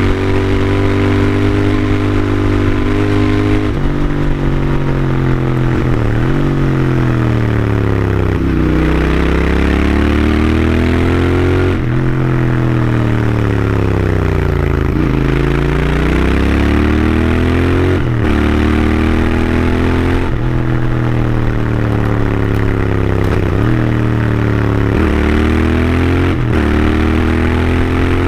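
Royal Enfield Interceptor 650's air-cooled parallel-twin engine and stock exhaust under way. The revs climb, drop briefly at each gear change and climb again, then fall away as the throttle is rolled off, several times over.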